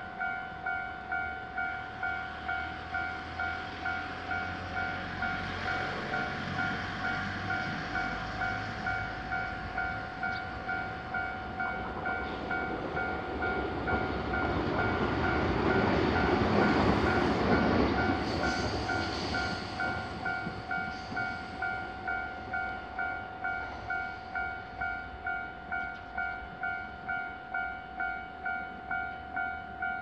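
Japanese electronic level-crossing warning bell ringing steadily, just under two dings a second. A train's rumble swells in the middle and fades away again.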